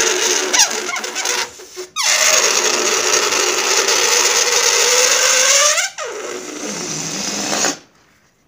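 Air squealing out through the stretched neck of an inflated latex party balloon as it is let down by hand, in three long stretches with two short breaks; it stops near the end as the balloon is nearly empty.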